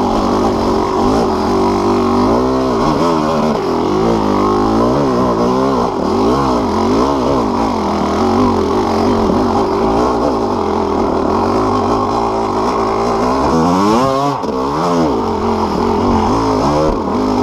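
Yamaha YZ250 two-stroke dirt bike engine, fitted with BeRad's Freight Train kit, being ridden with the throttle worked on and off, so the revs rise and fall again and again. The biggest swings in revs come a few seconds in and again near the end.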